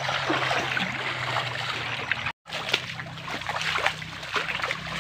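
Creek water trickling and splashing, with many small irregular splashes. The sound cuts out for an instant about halfway through.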